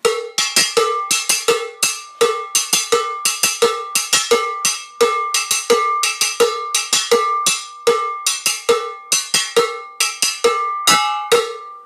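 Hand-held cowbell struck with a stick, playing a steady rhythmic pattern of about three to four strikes a second, some accented, each stroke ringing briefly with a bright metallic tone.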